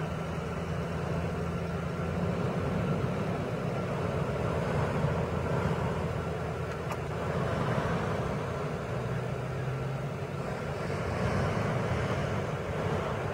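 An engine running steadily under a continuous rushing noise, with a low even hum.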